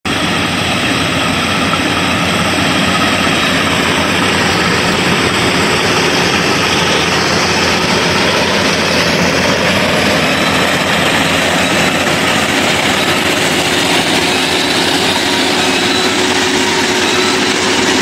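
Full-feed combine harvester running steadily while harvesting paddy: a dense, unbroken mechanical din of engine and threshing machinery.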